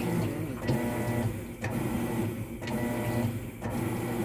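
Whirlpool top-load washer agitating during its diagnostic cycle: the motor drives the agitator back and forth in an even rhythm of about one stroke a second, with a steady mechanical whir. It is agitating normally.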